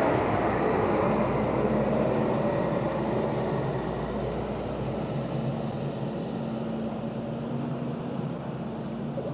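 Heavy diesel vehicle engine running steadily with a low hum, slowly growing quieter.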